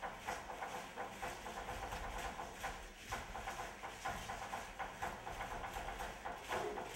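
Aztec dancers' ankle rattles and footfalls in a steady, rhythmic clatter. A held tone comes in near the end.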